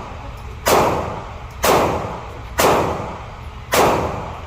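AR-15 rifle fired four times in steady semi-automatic shots, about one a second, each crack trailing off in a short echo.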